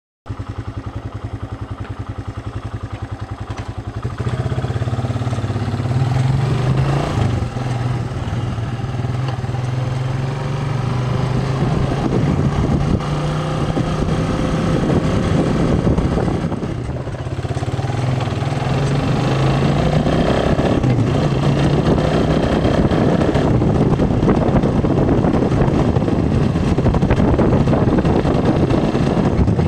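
An engine running steadily, its pitch wavering a little, with a rushing noise that grows stronger in the second half.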